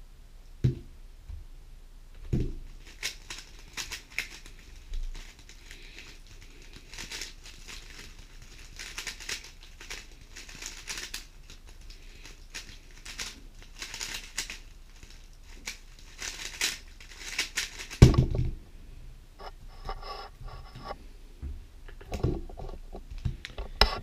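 GAN 11 M Pro speedcube being turned in quick bursts with short pauses, the layers giving off a rapid plastic clicking rasp, as when a cube is being scrambled for the next solve. A heavy thump about 18 seconds in, and a couple of lighter knocks near the end as the cube is put down on the desk mat.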